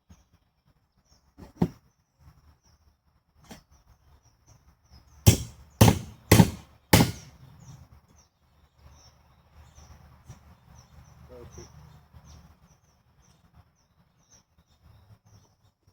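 Hammer blows on a small steel patch piece held in a vise, bending a lip on it: one sharp blow, then four loud blows about half a second apart, followed by quieter shuffling and handling.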